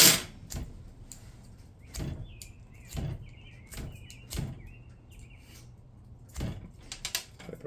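A fire-starter flint rod scraped hard with its striker to throw sparks: a string of short, sharp scrapes at uneven intervals, the loudest at the very start.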